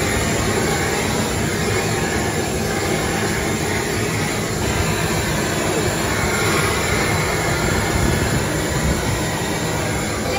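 Handheld gas blowtorch hissing steadily as it flame-sears food on a grate over a charcoal grill, with the fat flaring up in the flame.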